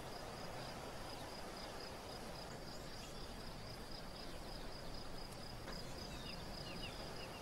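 Faint open-field countryside ambience: an insect chirring on one high pulsing note over a low hiss, with a few faint bird chirps near the end.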